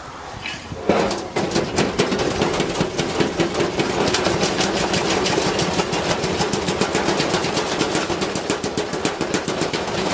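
A brick banging around inside a spinning washing machine drum: rapid, regular knocks over the machine's steady running hum. It starts suddenly about a second in.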